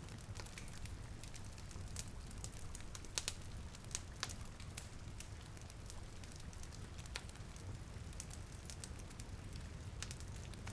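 Fireplace crackling, with scattered sharp pops, over a steady hiss of rain and a low rumble.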